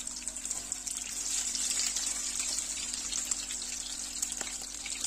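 Hamburger patties frying in shallow oil in a pan: a steady sizzling hiss with spitting crackles, getting a little louder about a second in.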